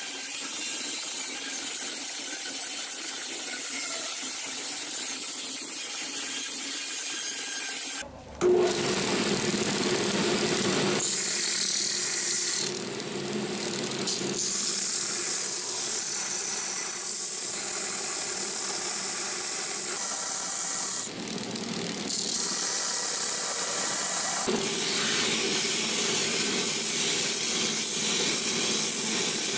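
Bandsaws cutting a wooden knife-handle block. One saw runs steadily, then about eight seconds in the sound switches abruptly to a second, louder bandsaw with a steady hum. That sound dips briefly twice.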